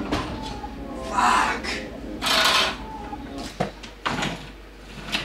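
Tools and gear being handled in a workshop: two longer scraping, rattling noises, then a few sharp knocks as things are set down.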